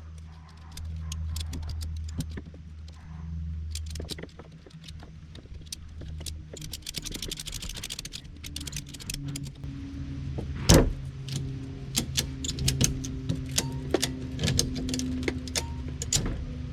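Ratchet straps being rigged and tightened: scattered clicks and metal clatter of the hooks and buckles, a fast run of ratchet clicks about seven seconds in, and a loud knock near eleven seconds, over a low steady hum.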